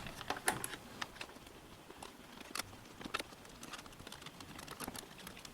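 Scattered light clicks and taps of instrument-cluster parts being handled and pushed into place, with a few sharper clicks, one about half a second in and another past two and a half seconds.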